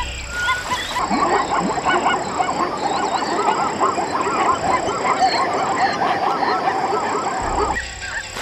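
A dense chorus of many animals calling at once: short overlapping honking calls that thin out near the end.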